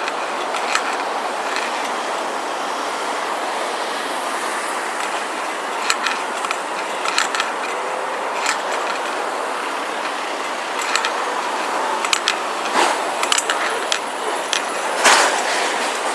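Steady city street noise, traffic-like, with scattered short clicks and knocks.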